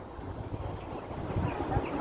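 Wind buffeting the microphone in low, uneven gusts, with a steady rushing hiss above.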